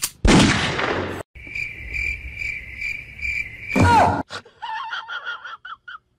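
A loud rushing burst, then crickets chirping steadily at a high pitch, pulsing about twice a second. The chirping is cut off near the end by a short burst with a falling whistle, followed by faint high wavering sounds.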